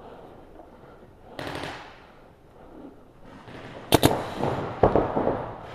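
Paintball markers firing in reball play: a string of sharp pops starting about four seconds in, in two quick clusters. Before the pops there is a quieter stretch with one brief noisy burst.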